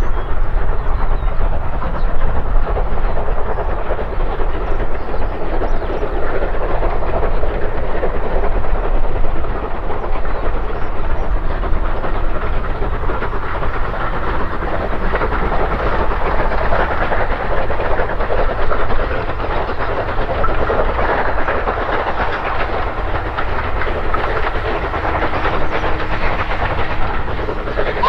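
Train running along the track: a continuous loud rumble and rattle of wheels on rail.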